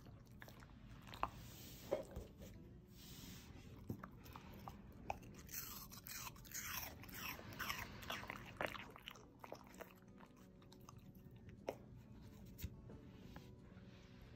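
Shiba Inu biting and chewing pieces of fruit: a few single crisp bites, then a busy stretch of wet crunching in the middle, then a couple of last bites near the end.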